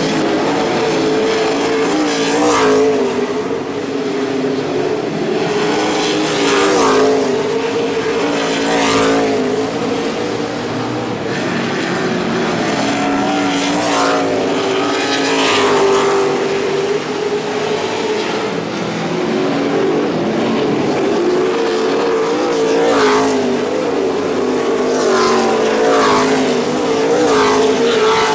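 NASCAR Camping World Truck Series race trucks' V8 engines running at speed around the track, the engine pitch wavering as they lap. Trucks pass close several times, each pass a brief surge in the sound.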